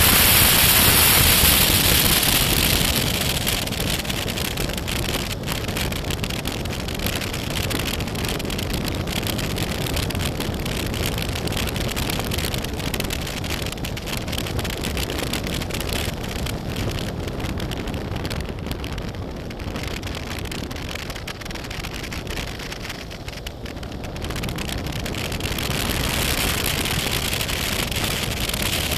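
BMW F800GS motorcycle being ridden, its parallel-twin engine running under heavy wind rush on the microphone and crackling tyre noise from the track. The noise eases for a few seconds about two-thirds of the way through, then builds again near the end.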